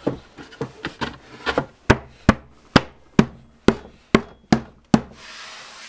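A plywood panel being knocked down into a wooden cabinet carcass to seat a tight fit: a run of sharp wooden knocks, softer at first, then about two a second. A short rubbing noise follows near the end.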